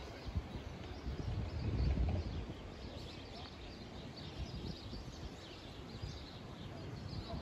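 Outdoor ambience: faint chirping of small birds over a low rumble, which swells briefly about two seconds in.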